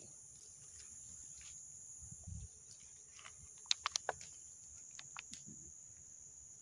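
Steady high-pitched chorus of insects, such as crickets, with a quick run of four sharp clicks about four seconds in.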